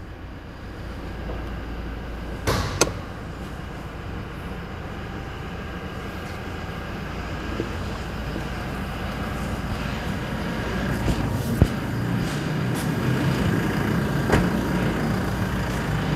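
2019 Toyota Fortuner VRZ's four-cylinder turbodiesel idling steadily, growing louder toward the end, with a few light knocks. It has the coarse idle that is normal for this diesel.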